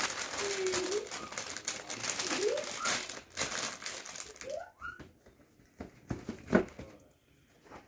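Gift packaging crinkling as a present is unwrapped, dense for the first three seconds. After that it thins to scattered rustles and clicks, with one sharp knock about six and a half seconds in.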